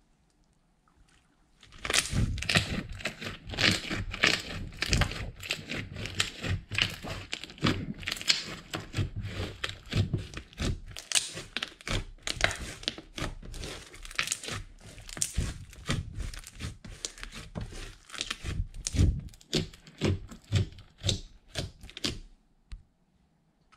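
Fingers repeatedly poking and squeezing a thick, holey slime, making a dense run of sticky clicks and pops. It starts about two seconds in and stops shortly before the end.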